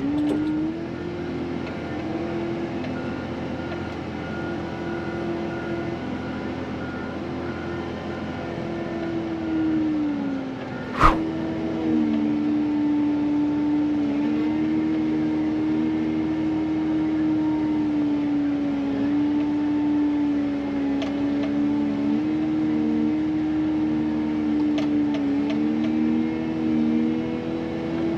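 Diesel engine of an XCMG wheel loader running steadily while pushing snow, its pitch sagging under load about ten seconds in and then recovering, with a single sharp clunk just after.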